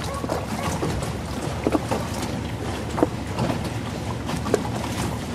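Choppy water slapping and splashing in short irregular bursts, over a steady low rumble.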